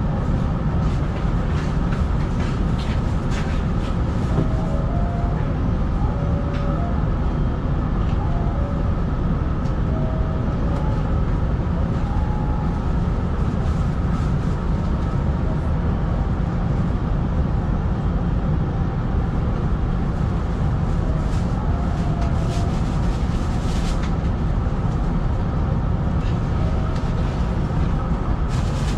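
Steady low hum and rumble of a stationary Hanshin 5500 series electric train's onboard equipment, heard from inside the cab, with a few faint short chirping tones now and then.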